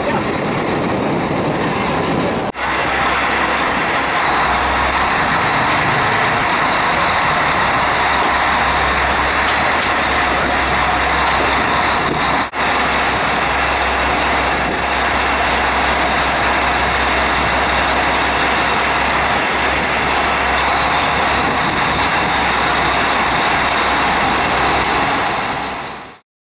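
Dive boat's motor running steadily under way, with wind and rushing water. It drops out briefly twice and cuts off suddenly near the end.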